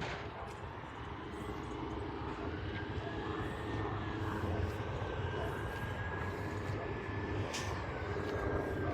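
A steady engine drone with a faint high whine, slowly growing a little louder.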